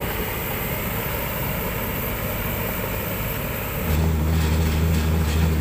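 Heavy diesel excavator engine running steadily. Almost four seconds in the sound steps up to a louder, closer, steady low drone.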